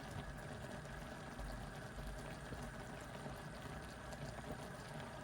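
Faint, steady watery noise with small irregular ticks.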